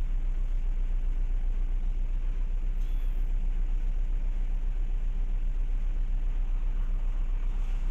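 Steady low drone of a ship's diesel engines heard on deck, with a fast, even throb.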